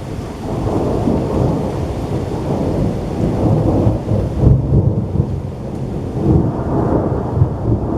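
Rolling thunder from a nearby lightning strike: a long, deep rumble that builds about half a second in and swells again twice, over the hiss of steady rain.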